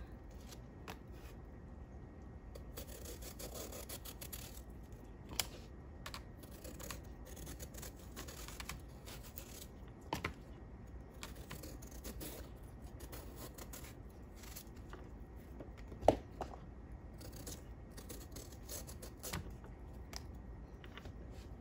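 Kitchen knife scraping the skin off a loofah, a soft repeated rasping, with a few sharp knocks, the loudest about three-quarters of the way through.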